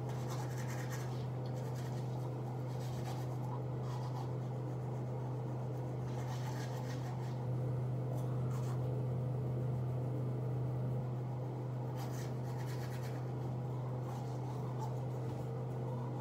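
Toothbrush scrubbing teeth in repeated scratchy bursts of about a second each, over a steady low hum that gets slightly louder for a few seconds in the middle.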